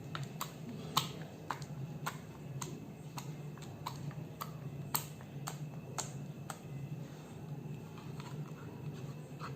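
Homemade glue-and-borax slime being squeezed and kneaded by hand, giving irregular sharp clicking pops from trapped air bubbles, about one or two a second, over a low steady hum.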